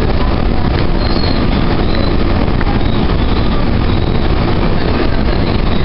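Steady running noise of a Calgary C-Train light rail car in motion, heard from inside the car: wheels on rail and car noise at a constant level.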